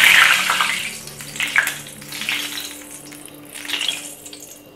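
Hot frying oil sizzling: a loud hissing burst at the start that fades, then several weaker bursts, over soft background music.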